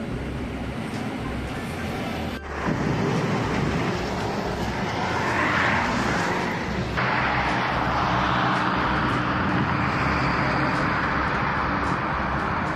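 Low, steady engine and road noise of a moving bus. About two seconds in it cuts to louder, steady traffic noise from vehicles driving on a highway below.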